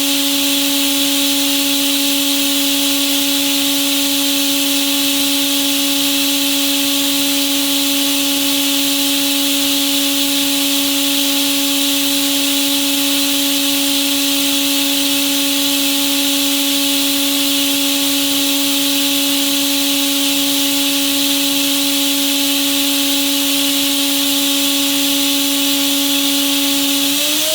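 Makino F5 vertical machining center's high-speed spindle running at constant speed: a steady whine over an even hiss. The pitch rises a little right at the end as the spindle speeds up.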